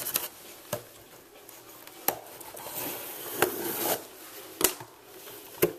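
Cardboard box being opened by hand after its top was cut: flaps rubbing and scraping, with a few sharp knocks and taps.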